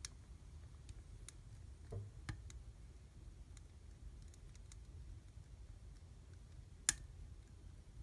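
Wood fire burning in a fireplace, crackling faintly with scattered small snaps, a few pops around two seconds in, and one sharp, louder pop near the end.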